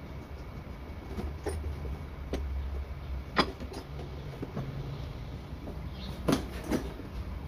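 Plastic toolboxes being set down and stacked on a wooden panel as weights, giving a loud knock about halfway through and two more near the end, over a steady low hum.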